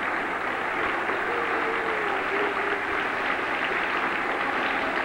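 Audience applauding steadily, with a faint voice rising over it about a second in.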